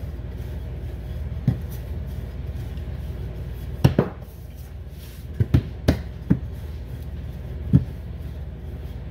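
Wooden rolling pin working a sheet of puff pastry dough on a countertop, with several short, irregular knocks as the pin is set down on and lifted off the counter, over a steady low hum.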